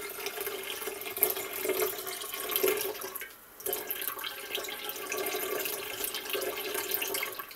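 Lingonberry juice pouring in a thin stream from a glass jar into a large enamelled pot, running into the juice already in it. The pour breaks off briefly a little past three seconds in, runs on again, and stops near the end.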